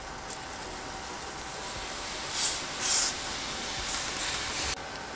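Beer poured over jerk pork on a grill above hot coals, sizzling and hissing steadily, with two loud hissing surges about halfway through and a softer one near the end as more liquid hits the heat. The hiss cuts off shortly before the end.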